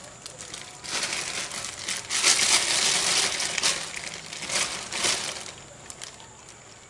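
Thin clear plastic bag crinkling and rustling in hand, in several irregular bursts that fade toward the end.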